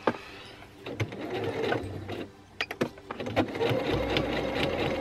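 Pfaff Quilt Ambition 2.0 sewing machine stitching a seam through several layers of fabric. It runs in short starts and stops, then more steadily over the last two seconds.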